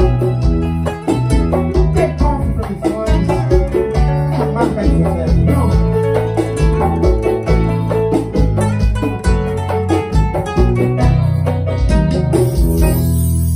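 Live band music: electric guitar, bass guitar, keyboard and hand percussion (congas and timbales) playing with a steady beat. About twelve seconds in the percussion stops and a held final chord rings on.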